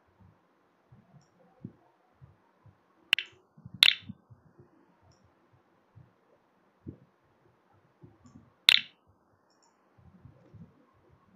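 Computer mouse clicking three times as blocks are dragged and dropped: two sharp clicks close together about three seconds in, and one more near the end.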